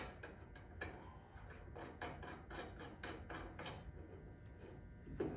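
Light clicks, knocks and scraping of metal suspension parts and hand tools being handled while a front spindle is fitted to the control arms, with a quick run of clicks in the middle and a sharper click near the end.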